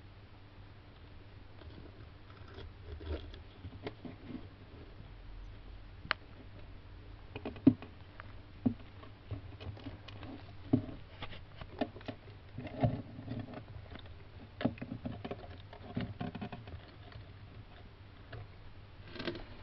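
Hermann tortoise's claws and shell scraping and tapping on soil, stone and wooden logs as it walks and climbs: irregular small scratches and clicks, busier from about seven seconds in.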